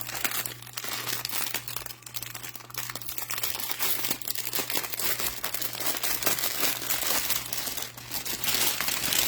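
Small plastic packets of diamond-painting drills being handled and sorted through, crinkling continuously and irregularly.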